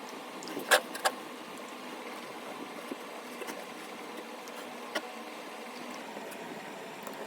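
A steady machine hum with a few sharp clicks: two loud ones about a second in and a lighter one near five seconds.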